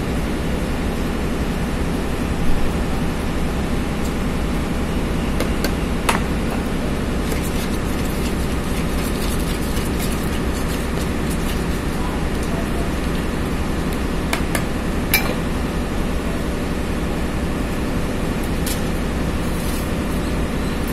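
Steady street background noise, an unbroken rumble and hiss, with a few short sharp knocks, the loudest about two and a half seconds in and another about fifteen seconds in.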